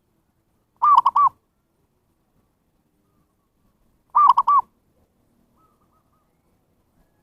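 Zebra dove (perkutut) cooing: two short phrases of three quick notes each, about three seconds apart. A fainter, similar call follows the second phrase.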